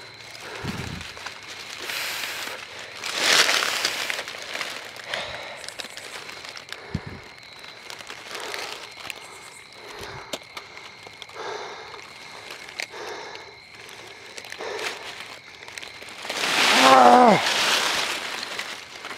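Dry leaf litter rustling and crunching as a rope is handled and knotted around a deer's leg, followed by footsteps through the leaves. A short voice sound falling in pitch comes near the end and is the loudest moment.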